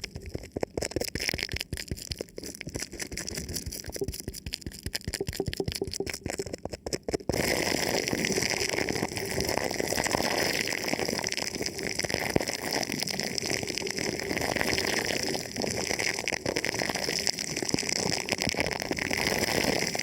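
Thin plastic film wrapped over a microphone, touched and rubbed, crackling and crinkling close up. About seven seconds in it turns into a louder, denser, unbroken rustle.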